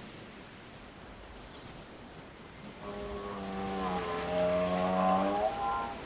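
One long, low animal call of about three seconds, starting about halfway through, dipping slightly in pitch and rising again at the end. It sounds over a steady hiss of wind and surf.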